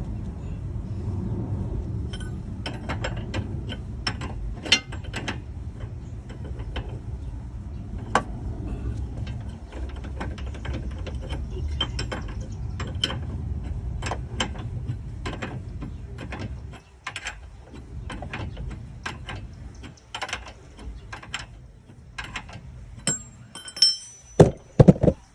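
Hand ratchet wrench clicking in short irregular strokes as a nut on the front suspension is worked loose, over a low steady rumble that stops about seventeen seconds in. A few louder metal knocks come near the end.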